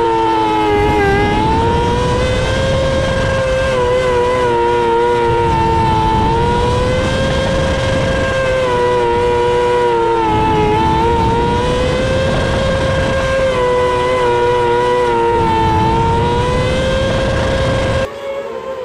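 Onboard sound of a winged 600 micro sprint car's 600cc motorcycle engine running hard around a dirt oval, its pitch dropping going into each corner and climbing again down each straight, every few seconds. Near the end it cuts to the car heard quieter from trackside.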